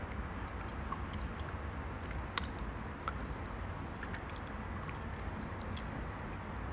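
Steady low background hum with scattered faint small clicks and ticks, one sharper click about two and a half seconds in.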